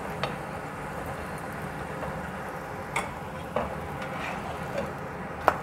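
Oil sizzling steadily under a stuffed paratha frying on a hot nonstick tawa, its top freshly brushed with oil. A few light clicks of a utensil against the pan, the loudest near the end.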